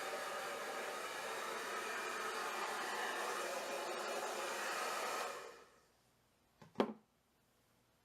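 L'ange Triomphe hair dryer blowing steadily, then switched off about five and a half seconds in, its noise dying away within half a second. A single short knock follows about a second later.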